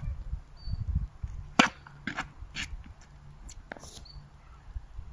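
A tennis ball knocking sharply, once loudly and then a few weaker times, with wind rumbling on the microphone in the first second.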